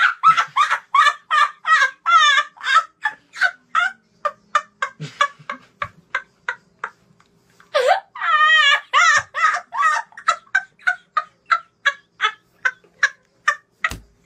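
A boy laughing hysterically: a long run of high-pitched, rhythmic cackles, about three a second, broken by a wavering squeal about two seconds in and a longer one about eight seconds in.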